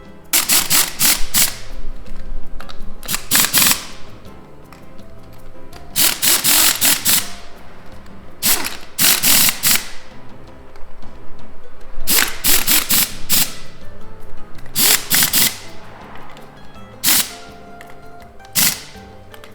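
Impact wrench hammering in short bursts of about a second, started and stopped again and again, as nuts or bolts are run off the scooter's wheel; soft background music underneath.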